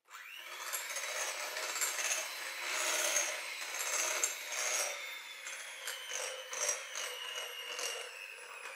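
Electric hand mixer switched on and running, its beaters whisking egg and flour batter and clicking and scraping against a glass bowl. The motor's whine sinks slightly in pitch over the last few seconds.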